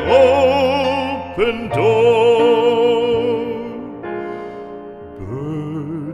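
Music: an operatic voice holds long notes with wide vibrato over soft accompaniment. About two-thirds through the voice drops away and the accompaniment carries on more quietly.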